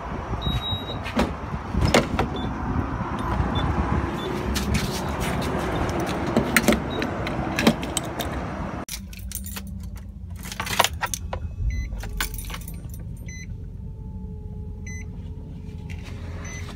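Keys jangling and clicks from handling, with steady outdoor traffic noise, while walking beside a car. About halfway through the outdoor noise cuts off abruptly, leaving a quieter low hum with light clicks and faint short beeps about once a second.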